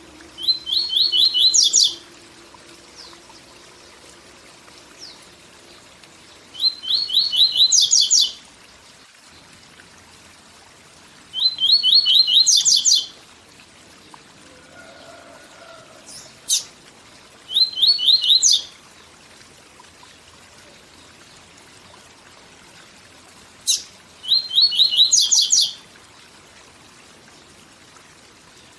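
Papa-capim seedeater singing its 'tui tui zel zel' song: five short phrases, each a quick run of repeated notes ending in a higher flourish, spaced several seconds apart, with a couple of single sharp notes between them. A steady waterfall rushes beneath the song.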